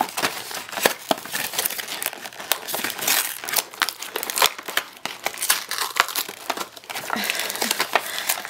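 Taped cardboard packaging being pulled and torn apart by hand: a steady run of crinkling crackles and sharp snaps.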